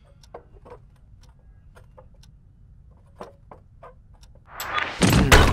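Hushed classroom with faint, scattered ticks and clicks. Near the end a whooshing swell rises quickly into a loud hit.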